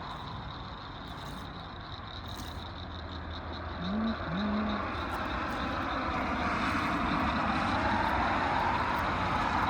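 Passing road traffic: vehicle engine and tyre noise, growing louder over the last few seconds, over a steady low hum.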